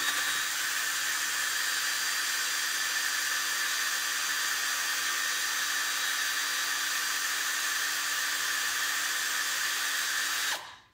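Cordless drill motor running at a steady speed, driving a 5/16-inch twist bit through a soft PVC end cap. It stops abruptly shortly before the end.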